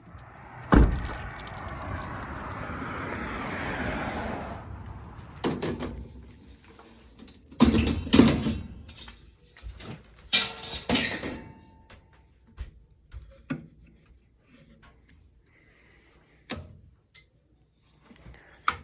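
Handling noises: a sharp knock about a second in, a rushing noise lasting a few seconds, then scattered knocks, clicks and jingling rattles.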